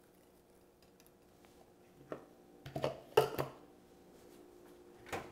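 A few light knocks and clinks of kitchenware being handled on a countertop, the loudest a small cluster about three seconds in, over a faint steady hum of room tone.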